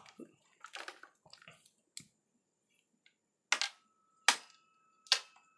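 Earphones being picked up and handled: faint rustling of the cable, then three sharp clicks, a little under a second apart, in the second half.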